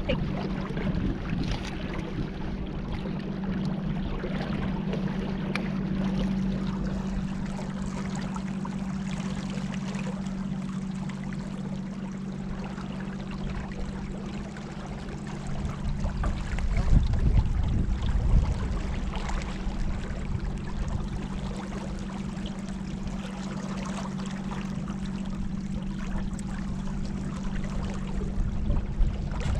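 Water sloshing and trickling against a small boat moving along a river, over a steady low hum. The splashing grows louder for a few seconds about halfway through.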